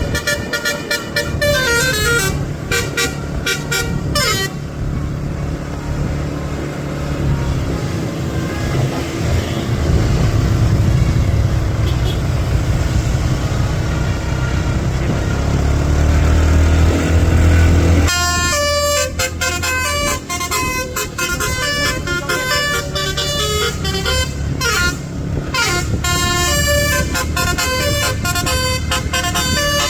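Telolet bus horn, a Basuri V3 multi-tone horn, playing a quick stepping melody for about four seconds. Then a low bus engine rumble with no horn, swelling louder for a couple of seconds before the horn melody starts again, about two thirds of the way in, and keeps playing.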